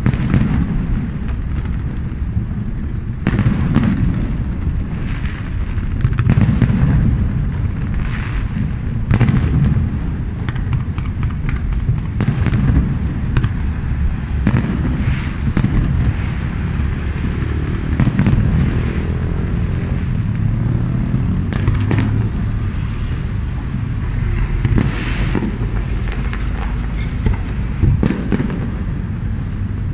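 Aerial fireworks display: shells bursting one after another in deep booms, a fresh burst every second or two, with crackling between them.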